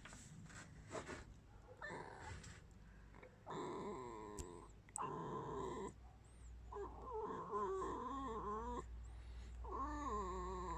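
Pet red fox whining: several runs of drawn-out, wavering, squeaky cries, beginning a few seconds in after some light rustling. This is the fox's complaining squeak, known to its owners as her "скрип".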